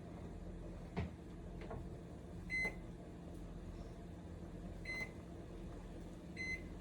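Microwave oven running with a steady hum, its keypad giving short single beeps at uneven gaps: two in the middle and one near the end. A couple of light clicks come about a second in.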